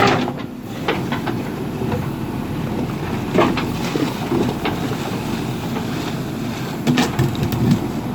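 Heavy earthmoving machine running steadily, with a few short knocks and clanks, one about three and a half seconds in and a cluster around seven seconds.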